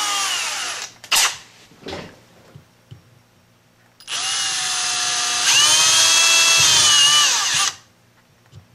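Cordless drill running a small center drill into the metal cap of an old quartz crystal held in a vise. A short run winds down about a second in, followed by a couple of light knocks. Then comes a steady run of nearly four seconds that jumps up in speed midway and stops.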